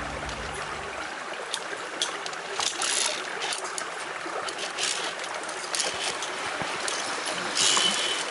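Mountain stream running steadily in a gorge, with scattered short clicks and clinks of via ferrata carabiners on the steel safety cable, a louder ringing clink near the end.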